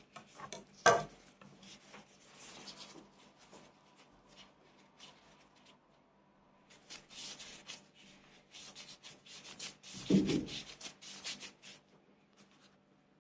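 Light rubbing, tapping and handling noises of hands and utensils shaping nigiri sushi on a cutting board. There is a sharp knock about a second in and a duller thump near ten seconds, over a faint steady hum.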